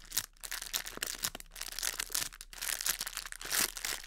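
Clear plastic packaging bag crinkling as it is squeezed and turned in the hands, in irregular crackling rustles broken by brief pauses.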